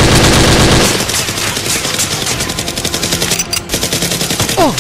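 Rapid automatic gunfire sound effect, dubbed over toy-blaster play, shots running in a continuous stream. It is loudest and most packed in a burst during the first second.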